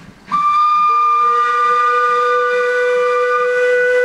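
Two narrow-gauge steam tank locomotives sounding their steam whistles together. A high whistle starts a moment in, and a lower one joins about a second in, making a steady two-note chord. The higher whistle stops shortly before the end while the lower one carries on.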